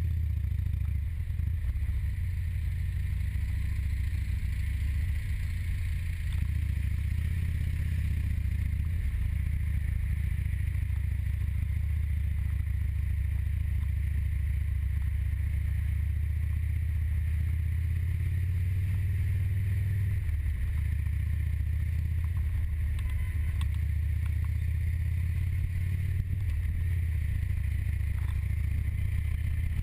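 Motorcycle engine running steadily while riding, a continuous low drone with small rises and dips in pitch.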